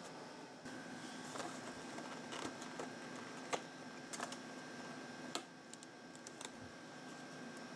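Light, scattered clicks and taps of a cardboard model box being handled and turned in the hands, over a faint steady hum that comes in just under a second in.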